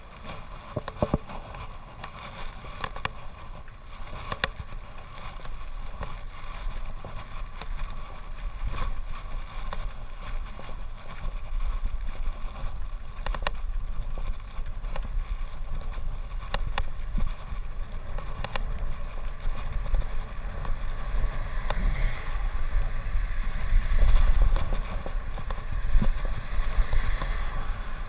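Wind buffeting the microphone of a handlebar-mounted camera on a moving road bike, a low rumble that grows louder as the bike picks up speed after pulling away. Scattered sharp clicks and knocks, likely from the bike rattling over the road surface.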